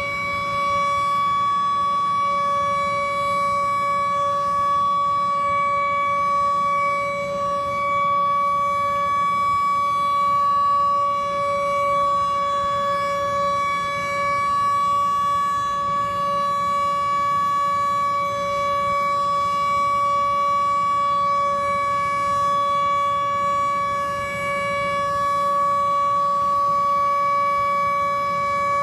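WWII-era air raid siren sounding a very loud, steady wail held at one pitch, with only small swells in level, heard through a closed window.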